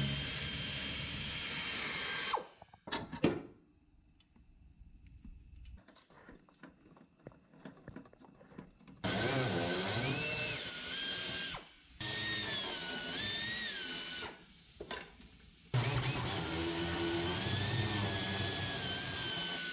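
Handheld pneumatic tool on an air hose running in bursts, its whine dipping and rising in pitch as it is loaded. It stops after about two seconds with a few knocks, is quiet for several seconds, then runs three more times for a few seconds each with short gaps.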